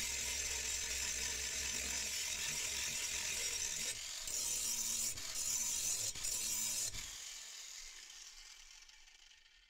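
Angle grinder grinding the steel blade of an old meat cleaver, with short breaks about four, five and six seconds in. After about seven seconds the sound dies away to silence.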